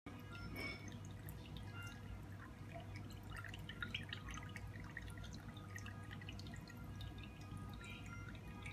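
Marine aquarium water trickling and dripping, with many small irregular splashes over a steady low hum.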